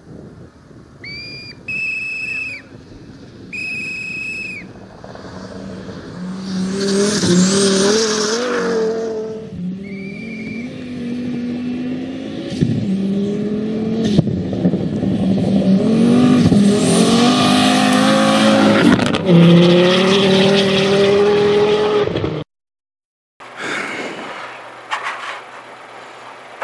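Audi 80 quattro rally car racing flat out on gravel, its engine revving up and dropping in pitch at each gear change as it comes closer and passes, loudest about 7 s in and again from about 16 to 20 s. A few short high steady beeps sound in the first seconds, and the sound cuts off sharply a few seconds before the end, followed by quieter in-car sound.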